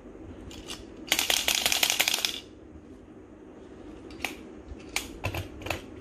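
Two plastic Kamen Rider Build Full Bottle toys shaken, giving a quick rattle about a second long, then four sharp plastic clicks as they are pushed into the slots of the DX Build Driver.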